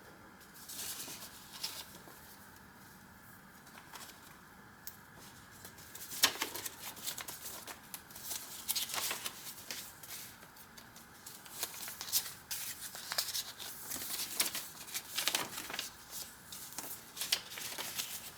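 Paper pages and card ephemera in a thick journal being turned and handled: scattered soft rustles and sharp paper snaps, the loudest about six seconds in.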